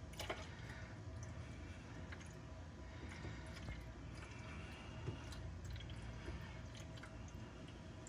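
Faint trickling and dripping of premixed antifreeze coolant being poured into a Ford 351 Windsor V-8's cooling system, with a few soft clicks. The system is being filled to push trapped air out of the engine block and heads.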